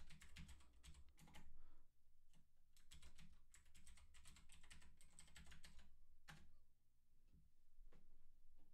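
Typing on a computer keyboard: quick runs of faint key clicks, then a single louder click about six seconds in, followed by a few scattered clicks.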